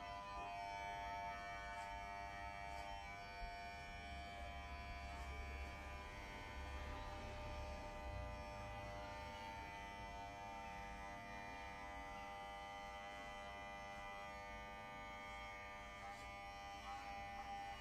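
Electric hair clipper running steadily while cutting hair close to the scalp.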